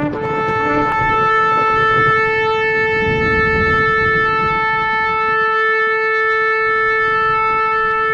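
Shofar blown in one long, steady held note, after two short lower blips as it starts. A low rumble runs underneath.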